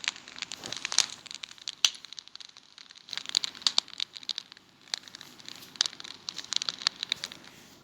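Fire crackling: a dense, irregular run of sharp pops and snaps.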